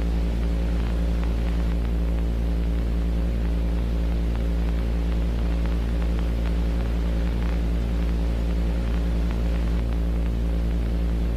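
Steady low electrical hum with a stack of overtones and a faint hiss of static over it, running without change.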